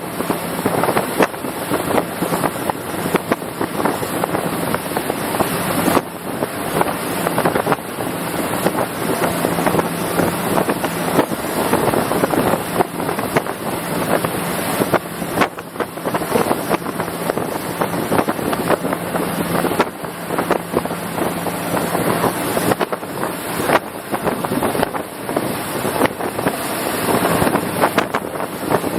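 RIB boat under way at speed: a steady engine hum beneath heavy, gusting wind buffeting on the microphone.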